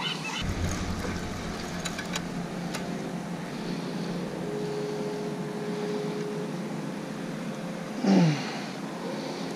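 Steady low drone of a boat motor running on the water. About eight seconds in, a sea lion gives one loud bark that falls in pitch.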